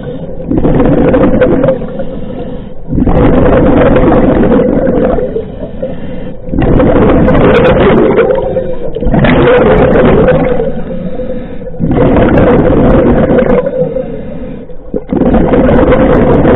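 Scuba diver breathing through a regulator underwater. Exhaled bubbles rush out in long loud bursts, alternating with shorter quieter inhalations, several breaths in a row.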